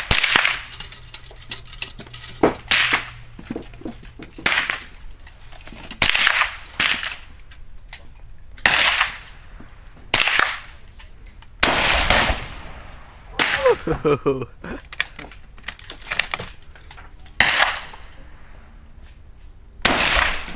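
Rifle gunshots on a shooting range: more than a dozen sharp reports at irregular intervals, some close together, each with a short echo.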